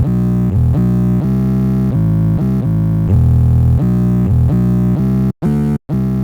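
Music: a deep, synthesizer-like bass line of held notes changing about twice a second. Near the end it is chopped by a few sudden brief silences.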